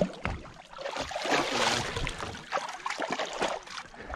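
Water splashing and sloshing at the side of a boat as a hand-held musky is let go and swims off, loudest about one to two seconds in.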